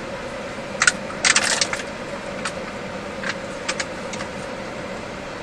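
Inside a moving car: the steady hum of the car and its air-conditioning blower. Over it come a cluster of short clinks and rattles about a second in, then a few lighter ticks.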